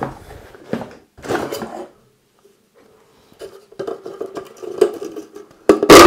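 Metal pipes and fittings of a diesel heater kit clattering and rustling as they are handled and taken from the box: short knocks and scrapes, a pause about two seconds in, then busier clattering with a louder clank near the end.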